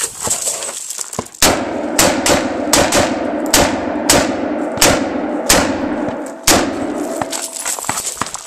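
Galil ACE rifle in 7.62x39 firing a string of about ten shots, starting about a second and a half in at roughly one every half second, then stopping.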